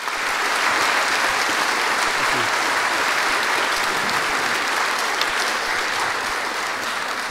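Audience applauding, a steady sustained clapping that eases off slightly toward the end.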